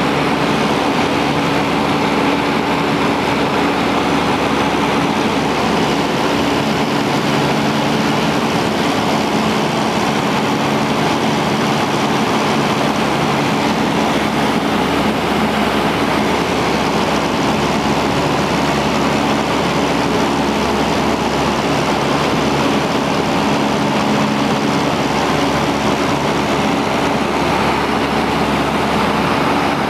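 Cabin noise of a Cessna 172 in cruise flight, heard from inside the cockpit: the piston engine and propeller running at a constant setting, mixed with airflow, as one loud, even drone with steady low tones.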